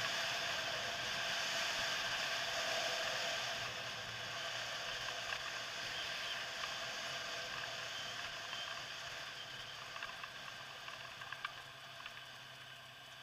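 Quad bike engine running on the move over a dirt track, along with wind and tyre noise, gradually getting quieter; a few sharp clicks near the end.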